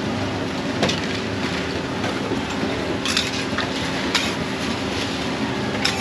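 Metal spatula clacking and scraping on a flat steel griddle while bread loaves are spread with egg and turned: several sharp clacks over steady background noise.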